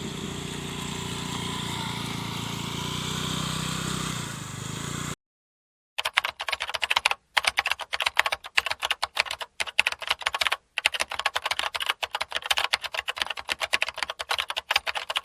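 A steady engine rumble that cuts off abruptly about five seconds in. After a short silence comes a rapid, uneven run of computer-keyboard typing clicks with a few brief pauses, the loudest sound here.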